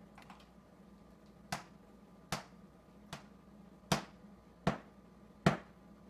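African grey parrot tapping its beak against a stainless-steel refrigerator door: six sharp taps, evenly spaced a little under a second apart, the last the loudest.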